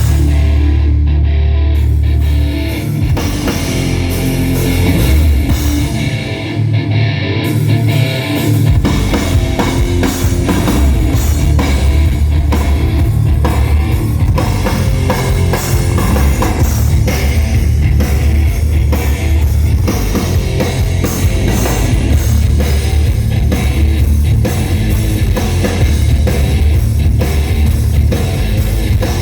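Rock band playing live at a sound check, with electric guitar, bass and drum kit. The low end is heavy at first, and the full band texture fills in about nine seconds in.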